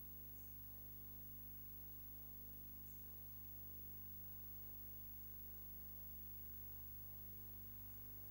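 Near silence: a faint steady low electrical hum with a thin high whine and a little hiss.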